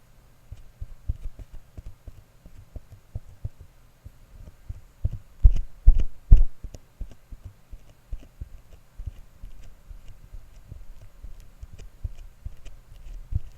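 Irregular soft thumps and light taps from hands working close against the microphone, handling noise made as an ASMR trigger, with three louder thumps about halfway through and another near the end, over a faint steady low hum.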